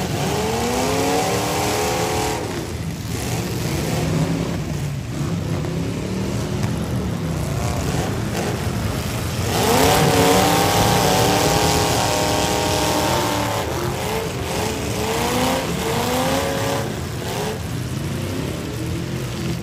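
V8 demolition derby car engines revving up and down over and over, several at once, with a loud surge about ten seconds in.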